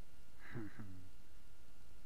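A man's short vocal sound, falling in pitch, about half a second in, over a steady low background noise.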